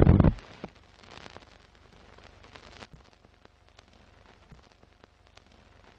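Intro sound design for a film-countdown leader: a loud hit at the very start, then a faint old-film crackle of scattered clicks and pops over a light hiss.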